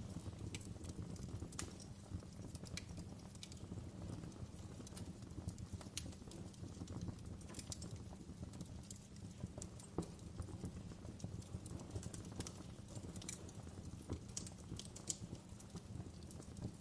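Wood fire burning in a fireplace: irregular sharp crackles and pops, a few a second, over a steady low rumble of the flames.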